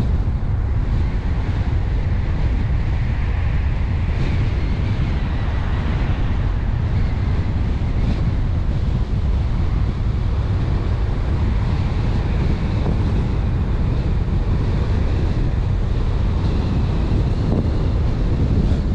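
Steady wind rushing over the microphone of a moving car's camera rig, with constant road noise from the car underneath, heaviest in the low end.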